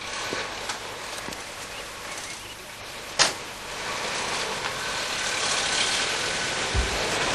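A GAZ Volga sedan's car door shuts with a sharp slam about three seconds in. The car's engine then runs and the car pulls away, its noise growing louder.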